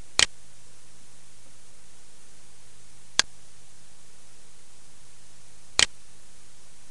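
Three sharp single clicks of a computer mouse button, a few seconds apart, over a steady microphone hiss.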